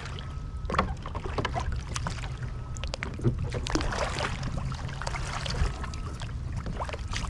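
Water splashing and sloshing as a man pulls himself out of the water and climbs onto a sit-on-top kayak. There are many short, irregular splashes over a steady low rumble of water close to the microphone at the surface.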